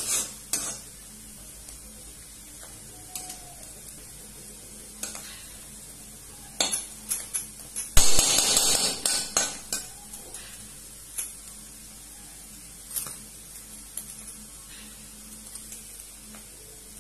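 Metal spatula scraping and clinking against a steel kadai while dried bamboo shoots are roasted in mustard oil: scattered scrapes, with a spell of fast scraping about eight seconds in.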